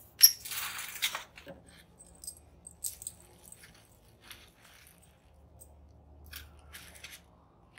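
Plastic bag crinkling and rustling as pieces of sponge are pushed into it by hand. A loud crinkle comes just after the start, then scattered smaller rustles and clicks, and more crinkling near the end.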